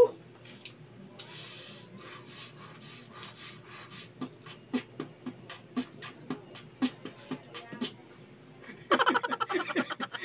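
A man beatboxing with his mouth: a regular run of percussive clicks and pops, about two to three a second, through the middle, then a louder burst of voice and breath near the end.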